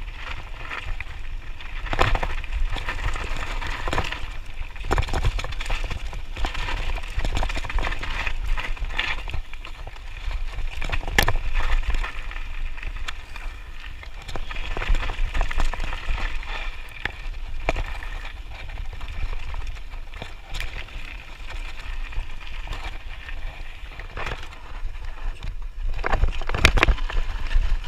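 Radon Slide 150 mountain bike riding fast down a loose gravel and dirt trail: continuous tyre noise over stones, with frequent irregular knocks and rattles as the bike hits bumps, over a steady low rumble.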